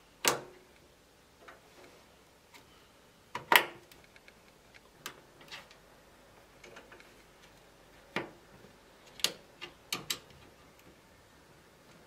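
Sharp clicks and knocks of Patriot Viper 4 RAM sticks being handled and seated into the motherboard's memory slots. There are about half a dozen separate clicks, the loudest a few seconds in and a quick cluster near the end.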